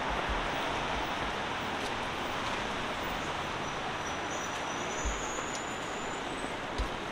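Steady city street traffic noise, with a faint high squeal about four seconds in and a few low thumps near the end.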